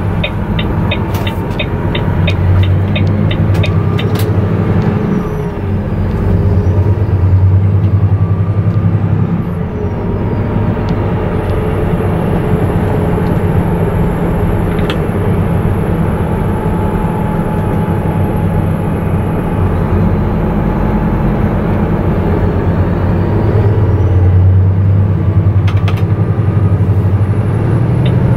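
Volvo truck's diesel engine running while driving, heard from inside the cab, its note rising and easing with the throttle. The turn-signal indicator ticks steadily, about three times a second, for the first few seconds and again near the end.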